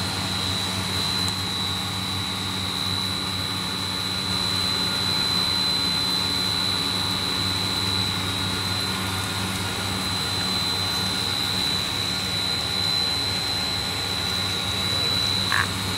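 Snack-food extrusion line running: a steady machine hum with a constant high-pitched whine over it.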